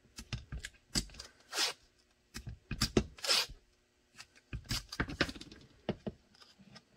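Blue painter's tape being pulled and pressed down in layers around a pistol and its metal blocking: irregular short rips and crackles, the longest pulls about a second and a half in and again around three seconds in.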